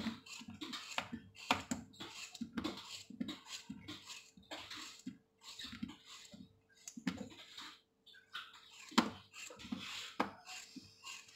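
Knife slicing ripe papaya by hand over a plate: soft, irregular cutting and scraping strokes about every half second, with a few sharper clicks.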